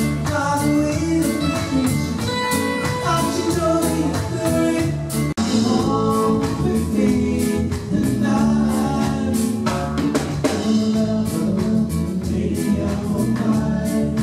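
Music with singing over a steady drum beat, breaking off sharply for an instant about five seconds in.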